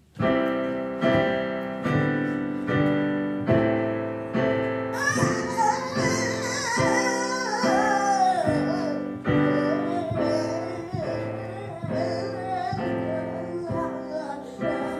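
Digital piano played with repeated, hammered chords at a steady beat, a little under two a second. From about five seconds in, a high voice sings over it, sliding down in pitch and then wavering on.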